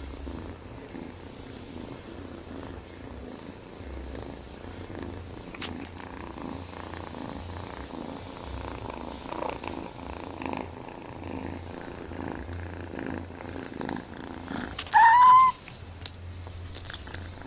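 Siamese kitten purring loudly and steadily, breaking off near the end for one short, loud meow.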